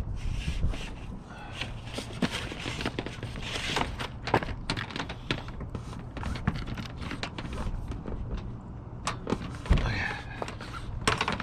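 Scattered clicks, taps and rustling from hands working wires and connectors through a plastic roof cable entry gland.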